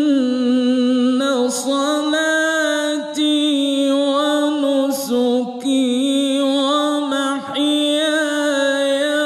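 A man reciting the Quran in the ornamented, melodic mujawwad style: long held, wavering notes sung into a microphone, with a few short breaks.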